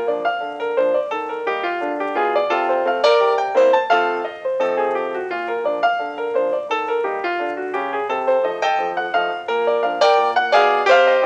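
Solo piano background music, a steady flowing run of notes.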